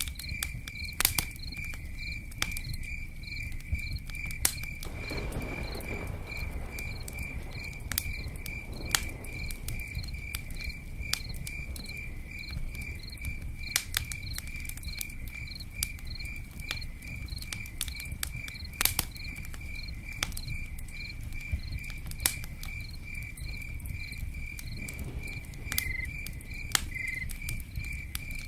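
Crickets chirping in a steady, even pulse, over a low steady rush of rain, with scattered sharp pops and crackles from a campfire.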